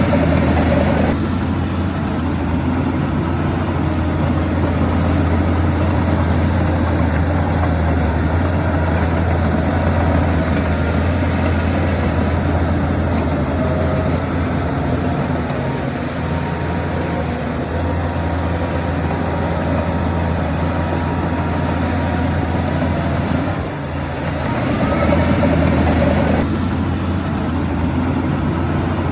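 Heavy diesel earthmoving machinery running steadily with a deep engine hum. The engine noise swells briefly near the start and again about three-quarters of the way through.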